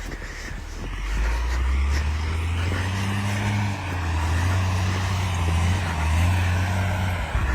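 Engine of a heavy snow-clearing machine running steadily, a low drone that builds about a second in, with a hiss over it.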